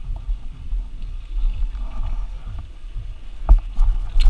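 Wind rumble on a helmet camera and the rattle of a downhill mountain bike rolling over a gravel path, with a sharp knock about three and a half seconds in and another just before the end.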